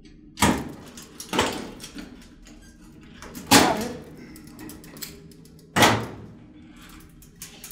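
A combination padlock yanked against a metal locker hasp: four sharp metallic clanks, each with a short ring, as the lock is tugged to test the combination.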